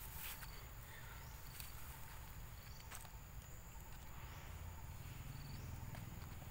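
Forest ambience: a steady high insect buzz, with a short high call repeating every second or so, over a low rumble and a couple of faint clicks.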